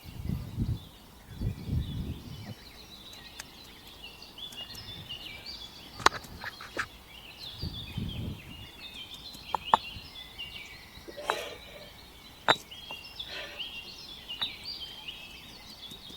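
Small birds chirping over and over in short high notes, with a few sharp knocks and some low muffled rumbles.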